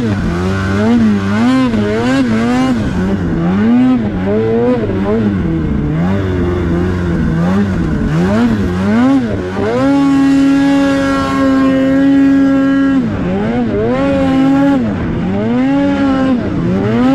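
Polaris 850 Patriot two-stroke snowmobile engine breathing through a Sled Shed Cooker Thing silencer, revving up and down about once a second as the throttle is worked. About ten seconds in it holds steady at high revs, on the pipe, for about three seconds, then swings up and down again.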